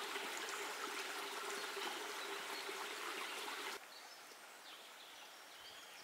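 Forest stream flowing: a steady rush of water that drops sharply about four seconds in, leaving a quieter trickle with a few small bird chirps.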